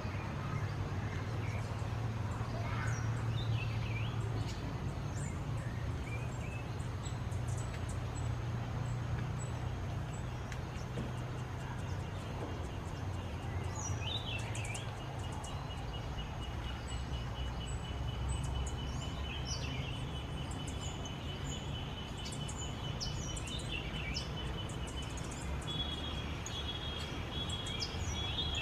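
Small birds chirping and calling now and then over a steady low rumble of background noise, with a long thin trill running through the second half.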